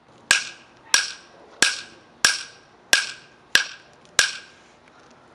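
Specialized carbon fibre bicycle crank arm struck hard against concrete steps: seven sharp knocks, about one and a half a second, each with a short ring. The carbon is holding up, with only its coating chipping.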